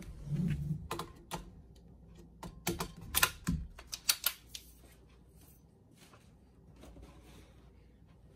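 A PTR 9CT rifle, an MP5 clone, being lifted off a table and handled: a low bump, then a quick string of sharp clicks and clacks of its metal and plastic parts, which die down after about four and a half seconds.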